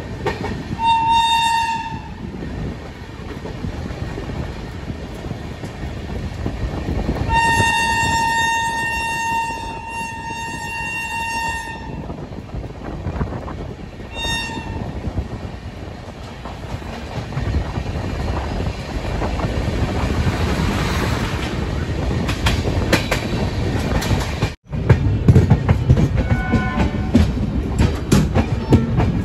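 Express train running through a station at speed, heard from an open coach door, its wheels rumbling on the rails. A locomotive horn sounds three times: a short blast about a second in, a long blast of several seconds, then another short one. Near the end the running noise grows louder.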